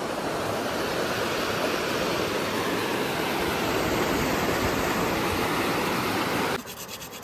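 Water pouring through the spillway of a small concrete dam, a steady rushing that cuts off suddenly near the end.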